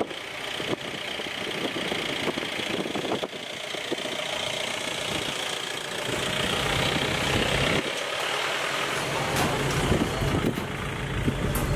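Passenger coaches of a commuter train running away along a curved track: a steady rumble of wheels on the rails with scattered clicks and clatter.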